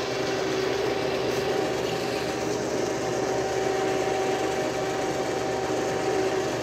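Electric trailer winch motor running under load with a steady whine, winding its cable to drag an old semi-truck cab onto the flatbed trailer.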